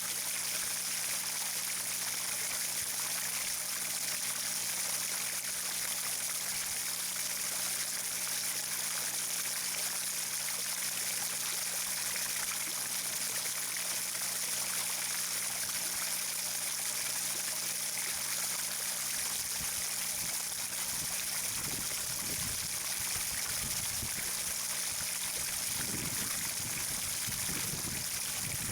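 Steady running water, with a low steady hum underneath that fades about three quarters of the way through as some irregular low sounds come in.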